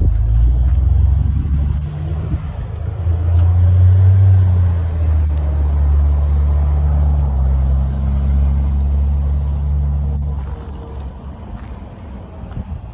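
A motor vehicle's engine running with a low, steady hum, dying away about ten seconds in.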